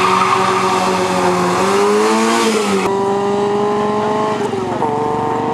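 A small hatchback race car's engine revving hard as it accelerates away from a standing start. The pitch climbs, holds and drops at gear changes.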